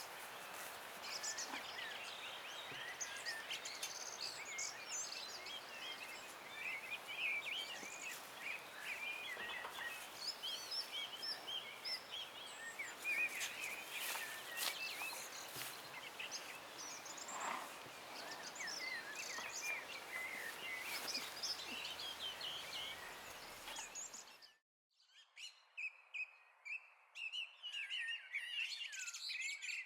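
Many songbirds chirping and singing together over a steady background hiss. About 24 seconds in the sound cuts out abruptly, and a moment later thinner birdsong resumes without the low background.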